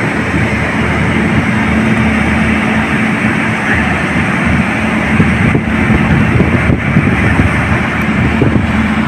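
Steady loud rumble with a held low hum from a standing passenger train's locomotive running close by, with unsteady, buffeting noise over it.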